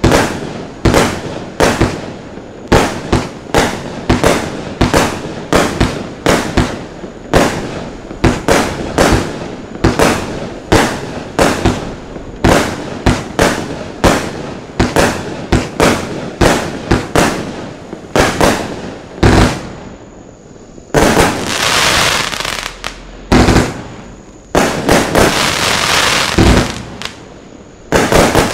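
A Lesli Dark Dragon 200-shot, 25 mm compound firework battery firing a rapid string of sharp shots and bursts, about two a second. Later it changes to longer, dense salvos, each lasting a couple of seconds.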